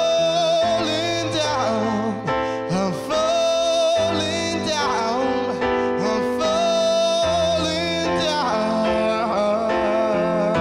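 Live pop ballad: a singer holds long, wavering notes and runs over keyboard chords that change every few seconds.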